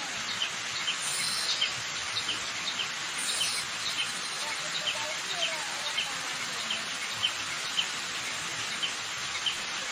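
Waterfall rushing steadily, with a bird repeating a short, high chirp about twice a second and a few other bird calls over it.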